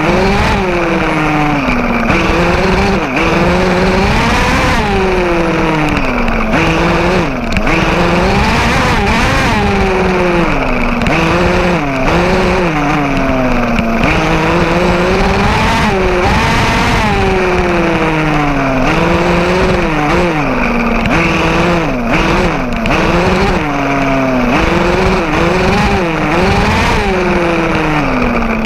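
Small two-stroke gas engine of a fifth-scale RC car, heard from on board, revving up and falling back again and again as it is driven on and off the throttle, over a steady rattle of drivetrain and grass.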